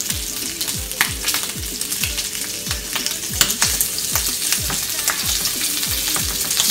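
Bacon sizzling as it fries in a skillet, with light clicks as tongs turn the strips against the pan. Underneath, a low falling thump repeats about twice a second.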